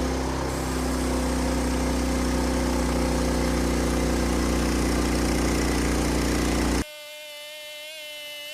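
Portable bandsaw mill running with its engine at speed as the blade cuts a pine log, a loud steady drone. Near the end it stops abruptly and gives way to a quieter, steady, even-pitched hum.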